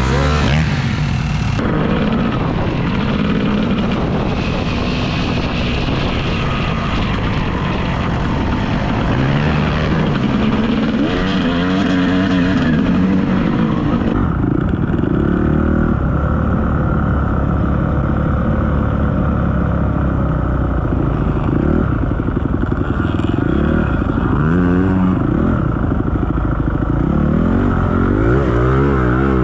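Dirt bike engine being ridden, its pitch rising and falling again and again as the throttle is opened and closed. The tone changes abruptly about 2 seconds in and again about 14 seconds in.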